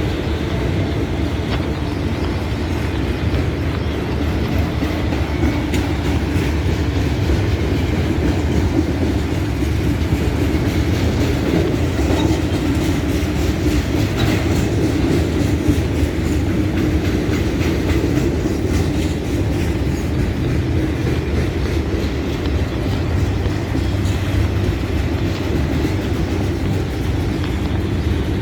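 Freight train of autorack and intermodal cars rolling slowly past, a steady rumble with wheels clicking over the rail joints.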